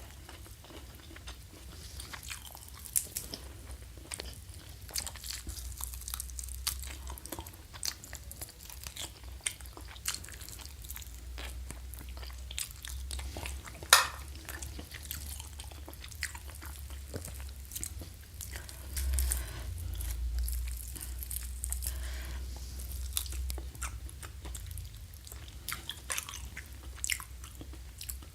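Close-miked chewing and biting of food, with crisp crunches and sharp wet mouth clicks, the loudest about halfway through. A steady low hum runs underneath.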